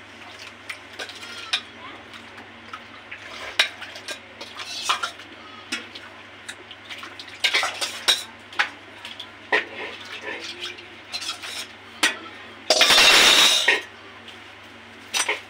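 Steel ladle clinking and scraping against a stainless steel bowl and a large steel pot as mint chutney is scraped out and stirred into pani puri water, in scattered short clinks and scrapes. Near the end there is a loud rushing noise lasting about a second.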